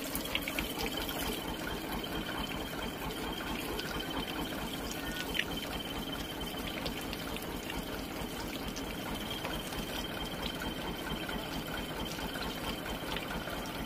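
Loaded sand dump truck on the move: its diesel engine runs steadily under a constant rushing road noise, with a few light rattles.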